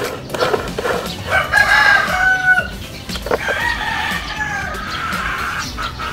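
Rooster crowing twice, two long drawn-out calls, the second starting a little past the middle.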